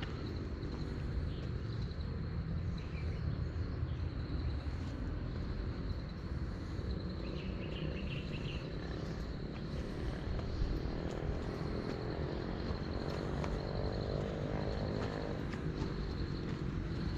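Outdoor ambience: a steady high insect chirring over a constant low rumble. From about ten seconds in, a motor engine rises in pitch, then cuts off about five seconds later.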